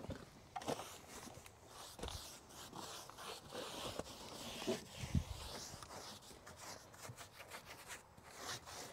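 Faint scratching and rustling of hands working over rough wooden shed siding and handling a cloth or sheet, with scattered small clicks and a dull thump about five seconds in.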